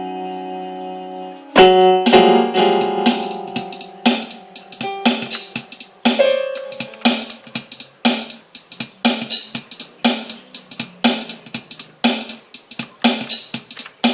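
Keyboard music: a held piano-like chord ringing out, a second chord struck near the two-second mark, then a steady drum beat with a low accompanying note, about two to three hits a second.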